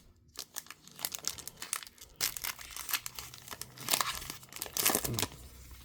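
Plastic trading-card pack wrapper being torn open and crinkled by hand, a run of crackling rustles.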